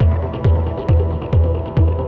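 Electronic music track with a deep kick drum on every beat, a little over two beats a second, over held synth tones and sharp ticks.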